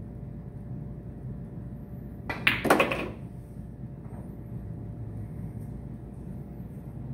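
Pool shot: the cue tip strikes the cue ball, then balls click together, a quick cluster of sharp clacks about two and a half seconds in. A steady low hum runs underneath.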